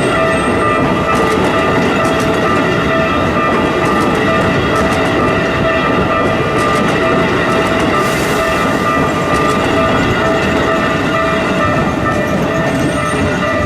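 A Keikyu electric train running over a level crossing, wheels clattering over the rails, while the crossing alarm rings steadily. A brief hiss comes about eight seconds in.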